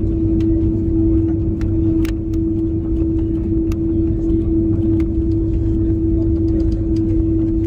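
Jet airliner taxiing, heard from inside the cabin: the engines' steady low rumble with a steady hum over it, and faint scattered ticks and rattles.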